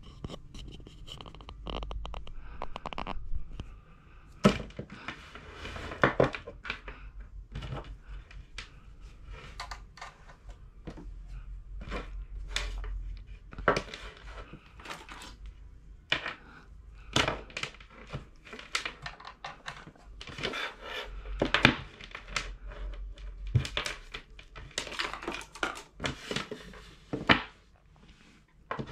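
Handling noise of wires, test leads and crocodile clips being sorted and connected on a desk: irregular clicks, knocks and rustling, with several sharper clacks.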